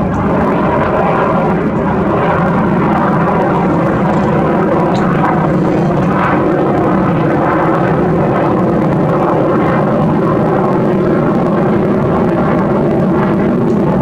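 Loud, steady drone of aircraft engines, holding level throughout.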